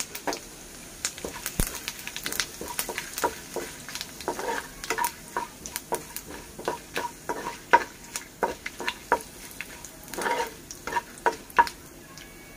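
Hot oil sizzling in a kadai with cumin, mustard seeds and curry leaves frying for a tadka, with frequent sharp crackles and clicks as a metal slotted spoon stirs through the pan.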